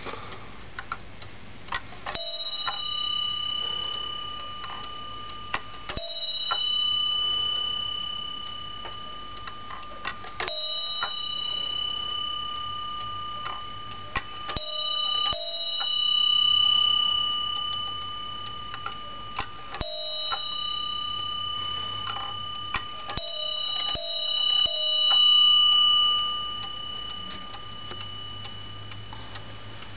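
Warmink Zaanse wall clock striking single blows on its bell while its minute hand is turned round by hand, to run through the strike. Each blow rings on for a few seconds, about every four seconds, with a few quicker blows close together about three quarters of the way through. The clock ticks steadily underneath.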